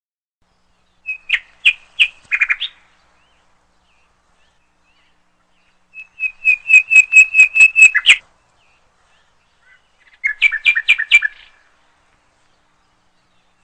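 A small bird singing: three bursts of quick repeated chirps, the middle one longest, with silence between them.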